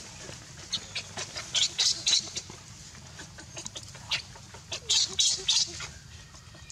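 Short, shrill animal squeaks and chirps in two quick clusters, about a second and a half in and again about five seconds in, with a few single calls between.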